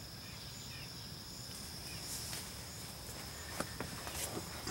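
Outdoor background noise with insects trilling in one steady high pitch, and a few light clicks near the end.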